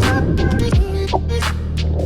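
Background music with a deep bass line and a steady electronic beat.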